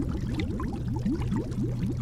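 Underwater bubbling: a steady stream of quick, rising bubble blips, several a second, over a low steady hum.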